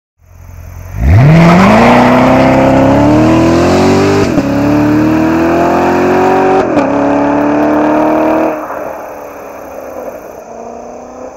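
Chevrolet Corvette Stingray's 6.2-liter V8 with performance exhaust accelerating hard from low revs. Its pitch climbs steeply, with two quick upshifts of the 8-speed automatic. About eight seconds in the engine note drops off sharply and carries on fainter as the car pulls away down the road.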